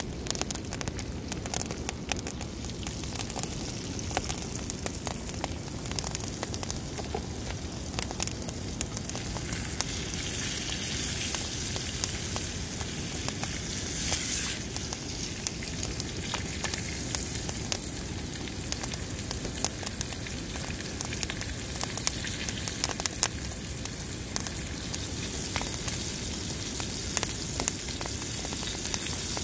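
Steak sizzling in butter in a frying pan over a wood campfire, with the fire crackling and popping throughout. The sizzle grows louder around halfway through as the steak is turned over in the pan.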